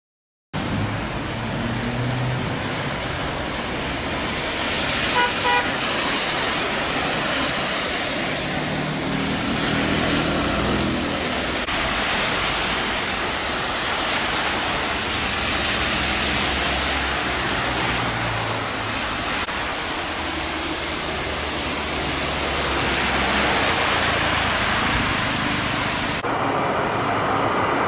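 Road traffic on a rain-soaked street: cars passing with their tyres hissing through water on the road. A short car horn toot comes about five seconds in.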